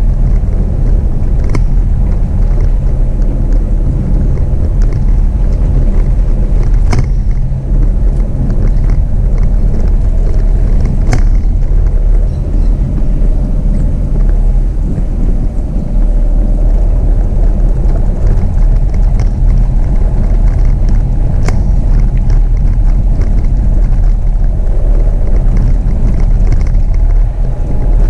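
Jeep Renegade 4x4 driving on a dirt road: a steady, loud low rumble of engine and tyres, with a few sharp clicks and knocks scattered through it.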